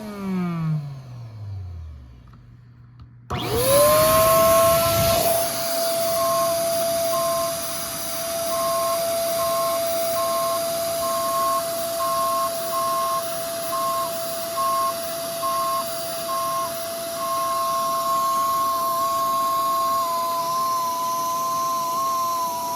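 Small 3D-printed air horn. Its note slides down and dies away, then a little over three seconds in the air comes on suddenly with a loud rushing hiss. The horn rises quickly to a steady tone, with a higher note breaking in and out about once a second.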